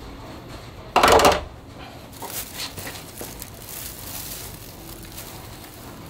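A full dust bag being pulled out of a shop dust extractor and handled. There is one loud crumpling rustle about a second in, lasting about half a second, then fainter rustles and knocks.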